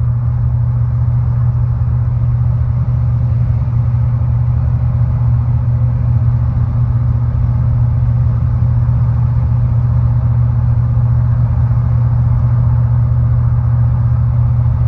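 Pickup truck engine running with a steady, unchanging low drone.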